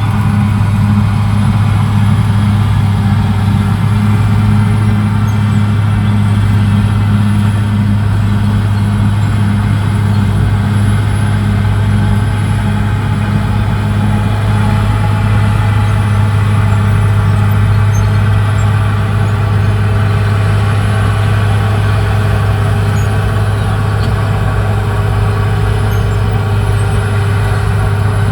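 CAT D6R XL bulldozer's diesel engine running steadily, with a strong low, even hum that holds level throughout.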